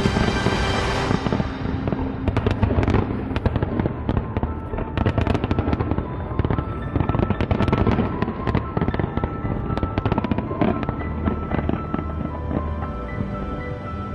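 New Year fireworks bursting in rapid, dense volleys of bangs and crackles, over music with long held notes.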